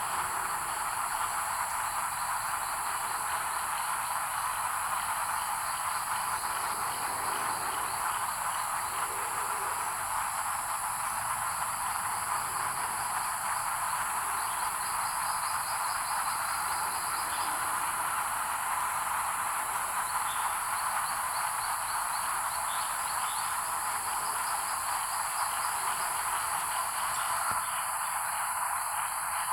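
Dense breeding chorus of gliding tree frogs (Agalychnis spurrelli), thousands of males calling at once so that their calls merge into a steady din, with a steady high-pitched hiss above it. It is the sound of males competing for females and egg-laying sites.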